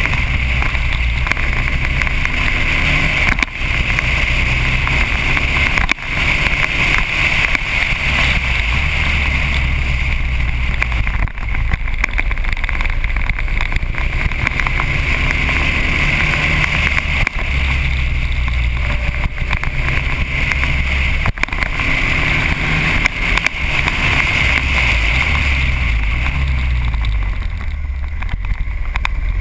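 Motorcycle engine running on the move with wind rush over the camera, the engine note stepping up and down with the throttle through the curves.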